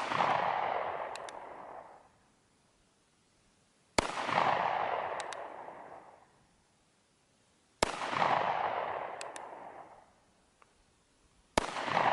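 North American Arms Ranger II .22 Magnum mini revolver firing single shots about every four seconds, each followed by a long echo that fades over about two seconds, with faint clicks between shots. The revolver is cocking and firing normally again after it had jammed and failed to cock.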